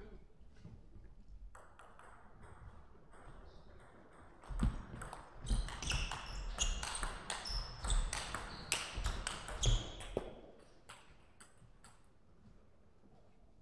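Table tennis rally: the plastic ball clicks sharply and quickly back and forth off rubber paddles and the tabletop, with a few short high squeaks mixed in. The rally starts about four and a half seconds in and stops around ten seconds.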